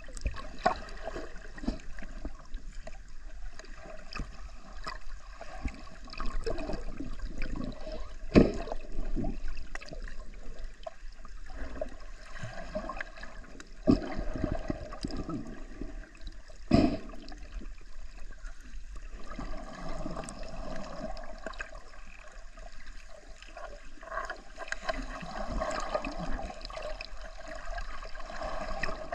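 Muffled underwater sound picked up by a camera below the surface: water gurgling and sloshing, with a few sharp knocks, the loudest about eight seconds in.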